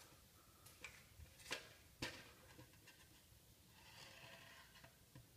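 Near silence with faint handling noise: two light taps about a second and a half and two seconds in, and a soft rustle around four seconds, as a plastic ruler and the generator tube are moved on a metal tray.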